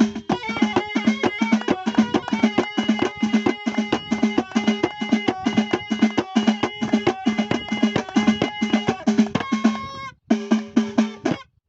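Folk music with fast, rapid drumming under a held melody line, briefly breaking off about ten seconds in.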